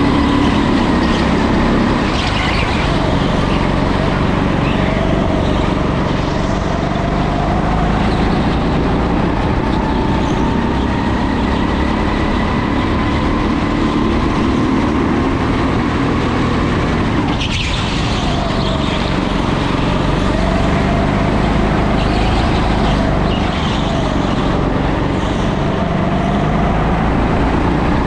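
Onboard sound of a go-kart racing round an indoor track: a loud steady drone whose motor note rises and falls as the kart speeds up and slows through the corners.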